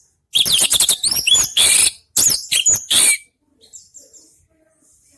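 Orange-headed thrush (anis merah) singing a loud burst of rapid, varied notes and sliding whistles for about three seconds, then only a few faint notes.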